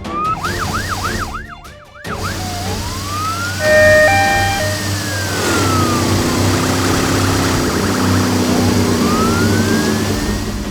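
Police car siren: a fast yelp of quick rising-and-falling sweeps for about two seconds, then a slower wail that rises and falls twice. A few short beeping tones come around four seconds in, and a low steady drone sits under the second half.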